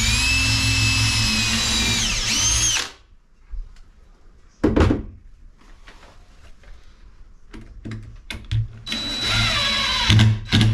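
Power drill driving a screw. It runs for about three seconds with a whine that rises, holds steady and winds down. A single knock follows, then a second, shorter run near the end that breaks into a few quick bursts.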